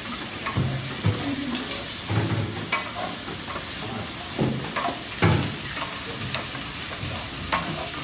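Meat frying and sizzling in aluminium pans as it is stirred, with the spatula knocking and scraping against the metal now and then.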